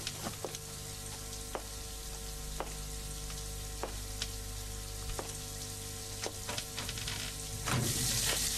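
Shower water running, a steady crackling hiss with scattered drips, heard from outside the bathroom; it swells noticeably louder near the end.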